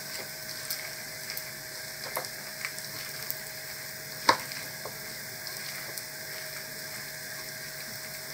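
A hand squishing and mixing egg-soaked white bread in a plastic bowl: a soft, wet crackling with scattered light clicks, one sharper click about four seconds in.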